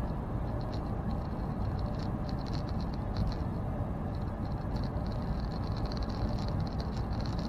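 Steady engine and road rumble inside a semi-truck's cab while driving at a constant speed on open road, with a flickering high hiss above it.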